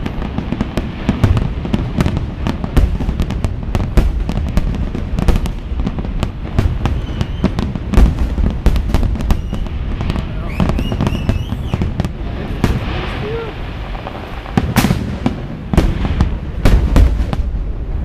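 Fireworks display: a dense, continuous run of sharp bangs and crackling shell bursts over deep booms, with the heaviest blasts about halfway through and again near the end.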